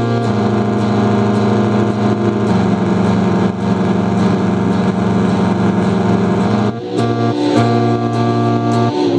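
Live electric guitar and electronic keyboard playing loud, sustained chords that hold for several seconds. About seven seconds in, the sound dips briefly and the chord changes.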